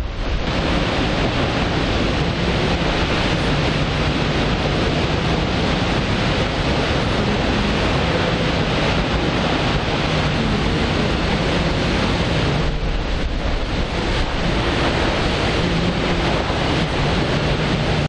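Düden Waterfall in flood, swollen with muddy water after heavy rain, plunging over the sea cliff: a loud, steady rush of falling water.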